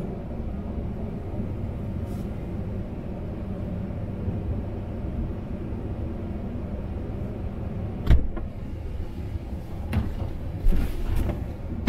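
Steady low rumble of a pickup truck idling, heard from inside its cab. Near the end come several sharp clunks as the driver's door is opened and then thumps shut.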